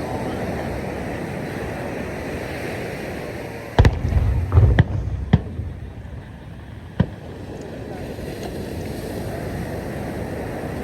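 Fireworks bursting over steady background noise. A cluster of sharp bangs comes about four seconds in, two more follow within the next second and a half, and a single bang sounds about three seconds later.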